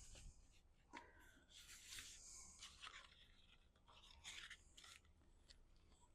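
Faint rustling and scraping of cardstock pieces being handled and positioned by hand, in a few short, scattered bursts.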